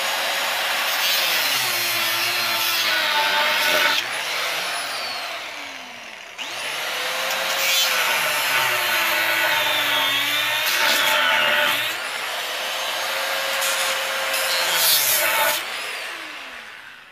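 An electric power tool cutting into an oxygen tank, its motor pitch dipping and recovering as it bites. It runs in two long passes, easing off about four seconds in, starting up again around six seconds in, and winding down at the end.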